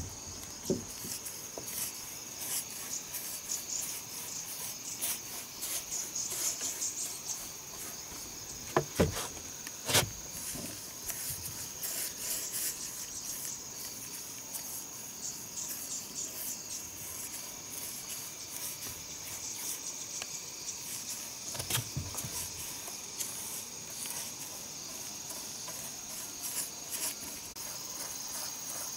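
Brush strokes rubbing on rough wooden wall boards while red paint goes on, over steady chirping of insects. A few sharp knocks stand out, two close together about a third of the way in and one more later.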